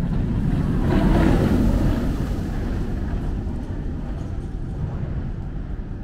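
Steel roller coaster train running down its drop and along the track, a rumble of wheels on steel that is loudest about a second in and then fades as the train moves away.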